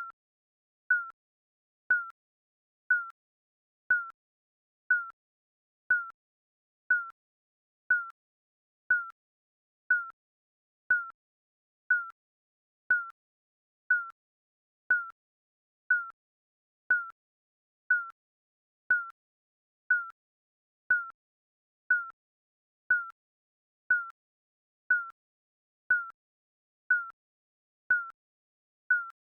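Digital countdown timer beeping: one short, high beep each second, evenly spaced.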